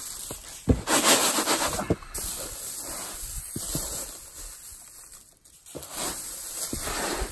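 Dry rustling and crackling of Acacia lasiocalyx seed pods and seed being handled, with scattered sharp clicks. It is loudest from about one to two seconds in.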